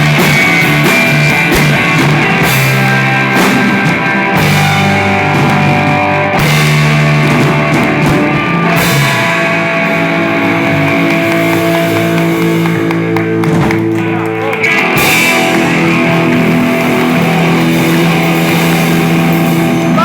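Rock band playing an instrumental passage: guitars holding notes and chords over drums.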